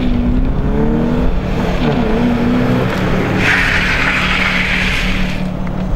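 Stunt car engine revving up and down, then tyres squealing on asphalt for about two seconds past the middle as the car slides.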